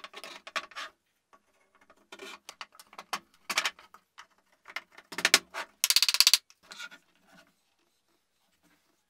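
Plywood parts of a jointed boom arm being handled on a plywood workbench: wooden pieces knocking and sliding against each other and the bench, with light clicks of hardware. The loudest moments are a heavy knock just after five seconds and a quick rattle around six seconds; the handling stops about seven and a half seconds in.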